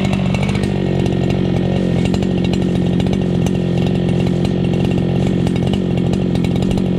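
Chainsaw engine running steadily at low revs, idling after the throttle has been let off.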